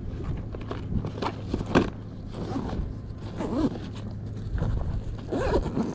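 Close handling noise: scraping and rustling with a few sharp clicks about one to two seconds in, over a steady low hum.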